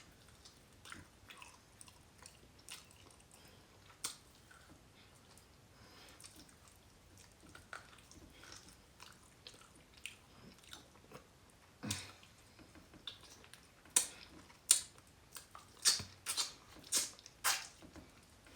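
A person chewing food with the mouth close to the microphone: soft, scattered wet mouth clicks, which turn into a quicker run of sharp smacks over the last several seconds.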